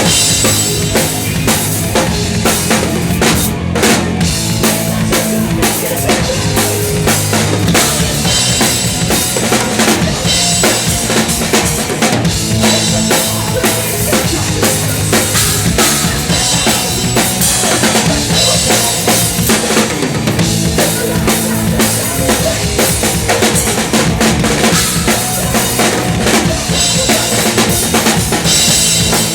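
Live progressive thrash metal played by a full band, with the drum kit loudest: fast, dense kick-drum and snare strokes under a constant wash of cymbals, and bass and guitar notes underneath.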